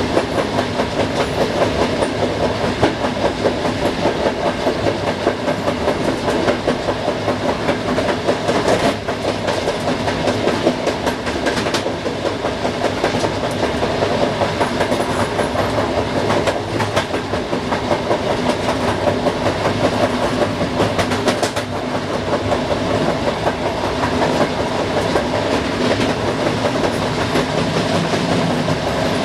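A passenger train running at speed: steady rolling noise with the wheels clattering rhythmically over rail joints, and a few sharper clacks over switches and joints along the way.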